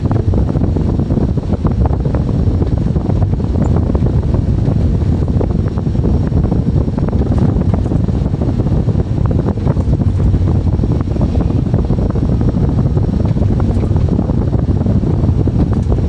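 Excavator running steadily under load, heard from inside the cab: a constant low engine and hydraulic drone with a dense rattle, as it works a padded compaction wheel along a trench.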